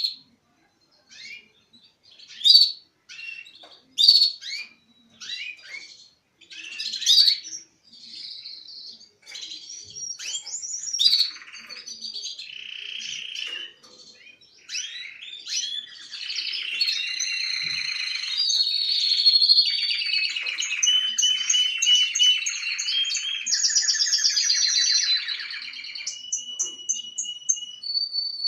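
Male red canaries singing: separate short chirps and calls at first, then from about nine seconds in a continuous warbling song of rapid trills and rolls.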